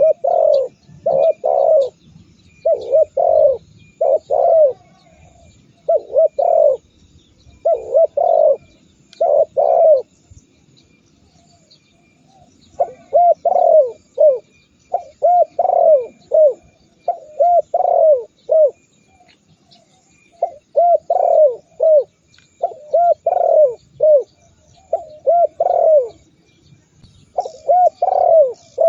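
Spotted dove (tekukur) cooing: repeated phrases of two or three arched, hooting coos, with a pause of about two seconds near the middle.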